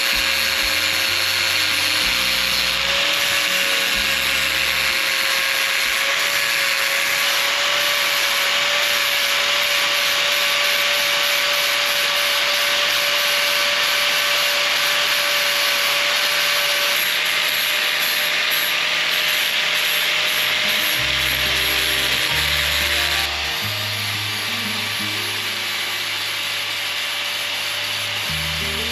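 Pipe belt sander running steadily against a welded stainless steel tube, smoothing down the weld: a steady hiss with a constant whine, which drops a little about 23 seconds in.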